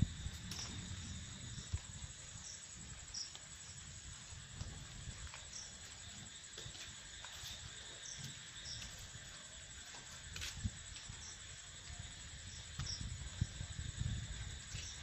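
Night insects: a steady high-pitched trill with a short chirp repeating about once a second, over low rumbling handling noise.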